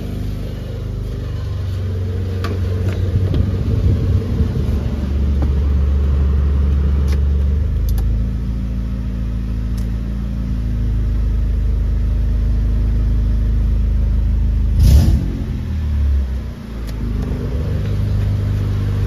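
Nissan Sentra engine running, a steady low hum whose note shifts a few times. There is one sharp knock about fifteen seconds in.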